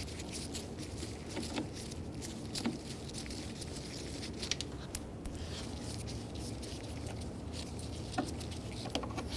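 Scattered light clicks and taps of hands and a screwdriver working around a plastic car door panel, over a low steady hum.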